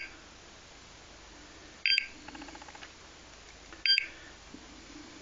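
Portable gas detector (explosimeter) beeping during its start-up sensor sweep: short, sharp electronic beeps every two seconds or so, the sign that it is still warming up and not yet showing a reading.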